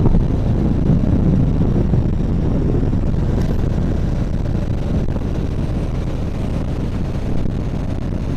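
Motorcycle on the move, recorded on board: a steady low rumble of wind on the microphone mixed with the engine.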